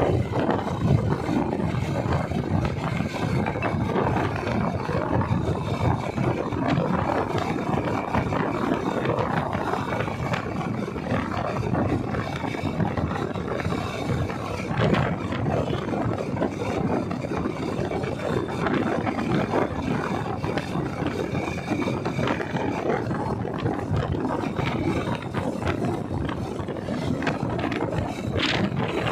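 Wind buffeting the microphone of a moving vehicle, with the rumble of the vehicle on the road: a constant rushing noise, heaviest in the low range, with no clear engine note.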